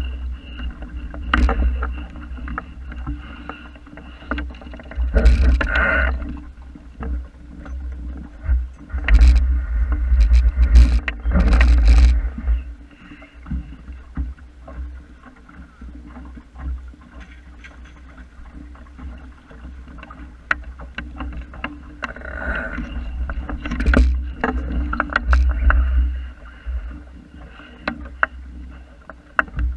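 Wind buffeting the camera microphone in gusts, with water slapping and splashing against the hull of a small wooden sailing dinghy under way. The gusts swell and fade several times.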